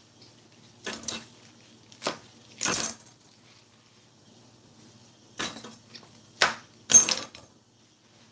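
Mustard greens being handled on a bamboo cutting board: about six short, crisp crackles and knocks, a second or so apart, as leaves and stems are sorted and laid down.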